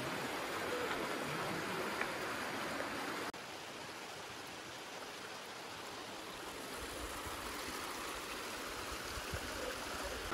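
Shallow stream water rushing and cascading over stepped rock ledges, a steady rush of water. About three seconds in it cuts abruptly to a slightly quieter rush.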